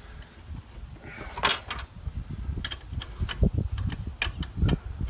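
Scattered metallic clicks and taps of a wrench working the nut onto the alternator's output terminal stud as it is snugged down against its lock washer, a few irregular clicks over low handling rumble.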